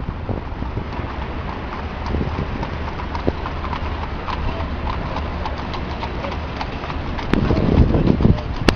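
Outdoor ambience with wind rumbling on the microphone and many scattered, irregular sharp taps, which grow louder and denser about seven seconds in.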